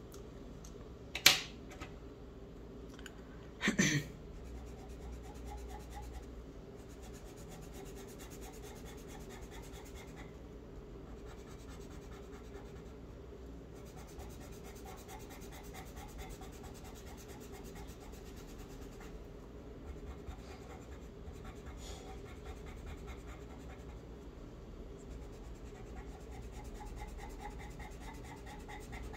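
Charcoal pencil scratching faintly across paper in short strokes as letters are drawn. Two sharp knocks stand out in the first four seconds.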